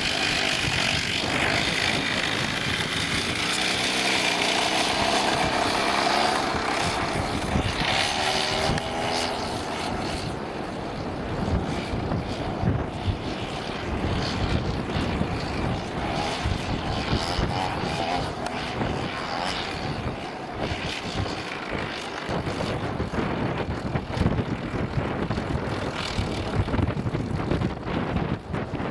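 Two-stroke chainsaw engine driving a motorised skateboard, buzzing and revving up and down for the first ten seconds or so, then running on with a rougher, more broken sound.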